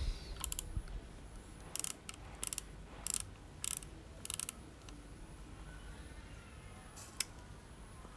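Mechanical clicks from a Kodak Retina folding camera's shutter and controls being worked: a run of short click clusters about every half second, then two single sharper clicks near the end, as the shutter is tried on its bulb setting.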